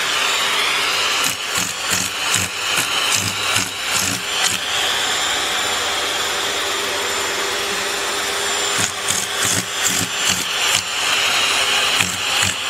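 Vacuum cleaner running steadily with a hose nozzle held to a cat. Uneven knocks and rattles come in two stretches, from about a second in and again from about nine seconds.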